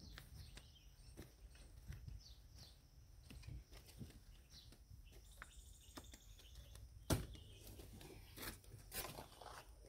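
Faint outdoor ambience: a low steady rumble with scattered light clicks and knocks, the sharpest about seven seconds in and a few more near the end.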